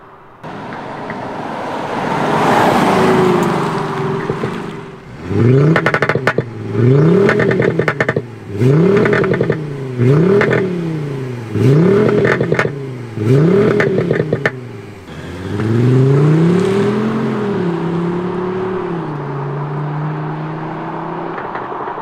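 Mercedes CLS 350d diesel with an aftermarket active sound generator playing a synthetic engine sound through an external speaker. A car swells past, then six quick rev blips about a second and a half apart follow, each with popping and crackling from the generator's misfire setting. A longer rev then settles into a steady, slowly fading drone.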